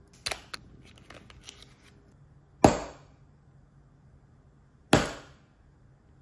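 Two sharp taps a little over two seconds apart: a hammer striking a brass punch, driving in the pin that fixes a rifle's gas tube in its gas block. Light clicks of the parts being handled come before them.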